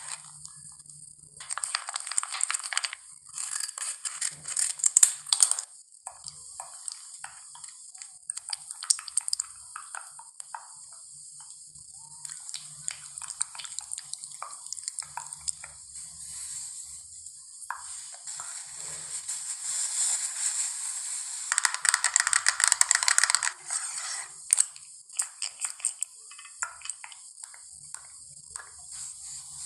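Makeup products and their packaging handled close to the microphone: irregular crackling, scratching and tapping in bursts, over a steady hiss.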